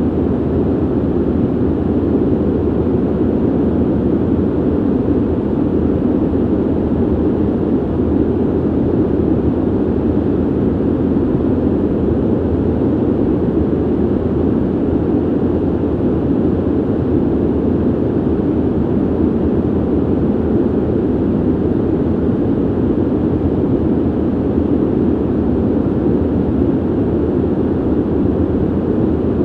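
Ventilation system noise: a steady, deep rush of moving air, even and unchanging, with little hiss on top.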